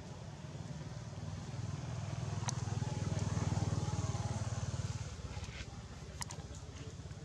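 A motor vehicle's engine passing by, growing louder to a peak about halfway through and then fading away. A few sharp clicks are heard along the way.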